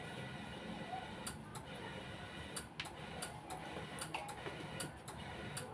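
A series of light, sharp clicks or taps at irregular intervals, about two a second, over a steady background hiss.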